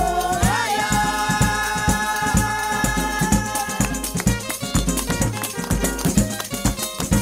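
Background music with shakers over a steady bass beat. A long held note sounds for the first half and ends about four seconds in.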